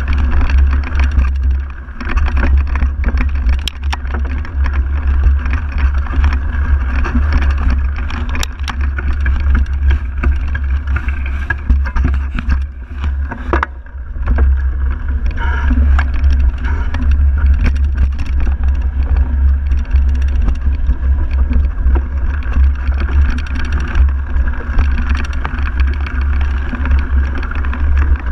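Mountain bike ridden over a dirt forest trail, heard from a handlebar-mounted camera: a heavy, steady rumble of wind and vibration on the microphone with tyre noise, and sharp rattles and knocks as the bike goes over bumps. The rumble eases briefly twice, about 2 seconds in and again past the middle.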